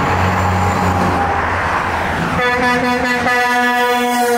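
Convoy traffic rushing past on a highway, with engine hum and tyre noise. About halfway through, a vehicle horn starts blowing and holds a steady note.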